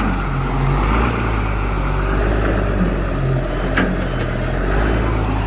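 Forklift engine running steadily with a low rumble, its reversing beeper silent for the moment. A single short knock, like metal striking metal, comes near the end.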